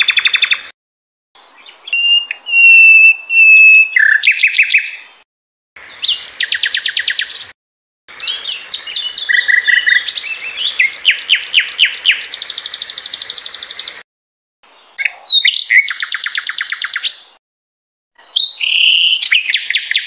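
Sikatan londo song: phrases of rapid repeated notes and trills with a few held whistles, in short bursts separated by brief silences.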